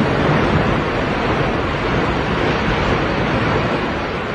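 Windstorm roaring, strong wind blowing hard against the microphone as a loud, steady rush of noise.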